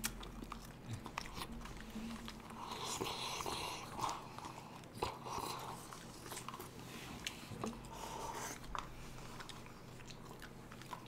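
Close, fairly quiet eating sounds of people eating ice cream: chewing and mouth smacks, with many small scattered clicks from wooden spoons and paper cups.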